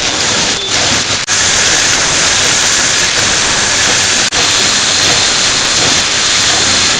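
Loud, steady hissing noise, broken by two short dips, about a second in and just past four seconds.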